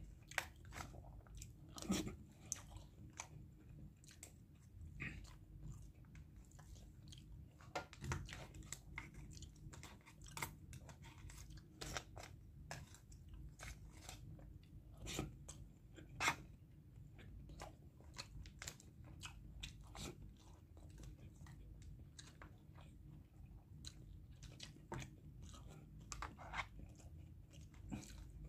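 A man eating: chewing and biting, with many short clicks and scrapes of a metal fork and spoon against a foil food tray, over a low steady room hum.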